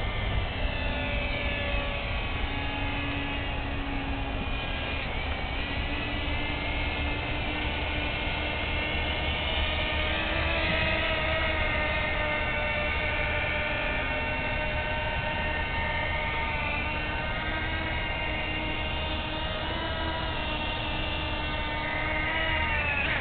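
The electric motors and propellers of a quadcopter-airplane hybrid RC aircraft whine together as several steady tones that drift and shift in pitch with throttle changes in flight. Right at the end the pitch falls steeply as the motors throttle down.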